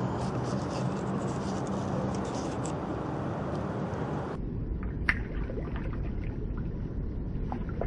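Steady waterside background noise. About halfway through it gives way to a low rumble with small splashes and ticks as a hooked eight-banded cichlid thrashes at the water's surface on a float rod, with one sharp click.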